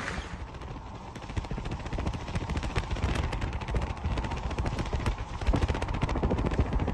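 Road rumble and wind noise of a moving car heard from inside, with many quick rattling knocks.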